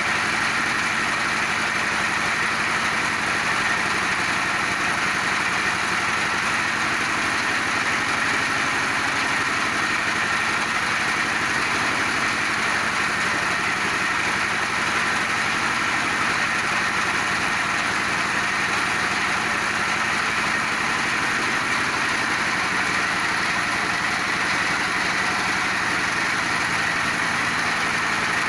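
Multipurpose feed pellet machine running steadily, with no change in its sound.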